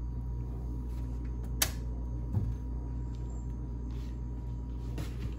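A steady low hum, with a single sharp click about a second and a half in and a dull thump just after two seconds.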